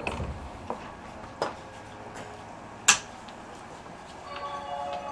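Cabin of a JR 205 series electric train standing at a station: quiet, with a few scattered clicks and one sharp click about three seconds in. Near the end a chiming tune starts up.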